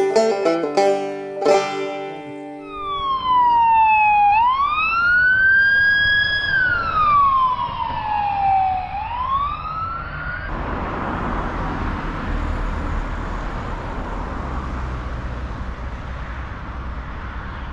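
A few plucked banjo notes of music, then a police car siren wailing in slow rising and falling sweeps for about eight seconds, cutting off suddenly into steady traffic noise.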